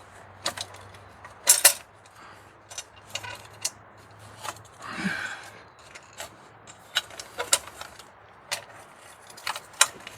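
Hand tools and metal engine parts clinking and knocking during an engine teardown: scattered sharp clicks, the loudest a quick pair about a second and a half in, with a short scrape around five seconds.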